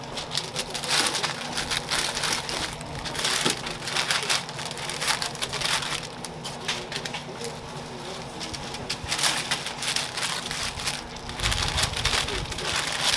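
Toast being made on a street-stall griddle: irregular scraping, crackling and crinkling over a steady hiss. A steady low hum runs underneath.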